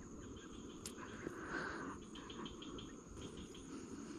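Faint insect chorus, crickets by the sound of it: a steady high trill with short rhythmic chirps over it, and a brief rustling noise about a second and a half in.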